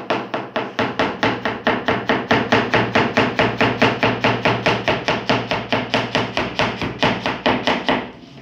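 Broad-bladed kitchen knife rapidly slicing cabbage into fine shreds on a plastic cutting board: an even run of knife strokes hitting the board, about five or six a second, stopping shortly before the end.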